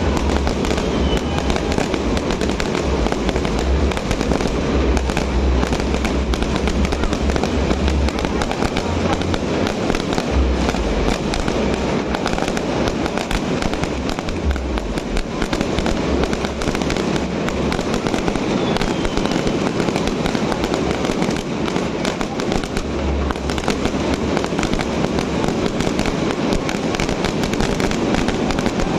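Fireworks display going off without a break: a dense stream of rapid bangs and crackles.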